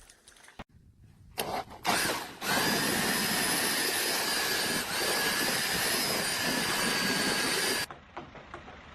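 A few clicks, then a motorised machine runs with a steady, high whine for about five seconds and cuts off suddenly.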